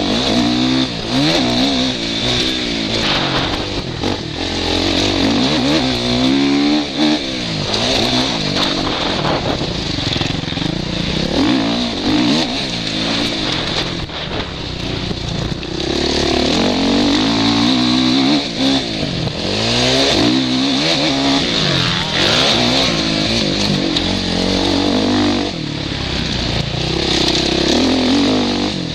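Suzuki RM-Z450 motocross bike's single-cylinder four-stroke engine being ridden hard round a dirt track, its revs rising and falling again and again. Heard close up from the rider's helmet, with a steady rush of wind and noise over it.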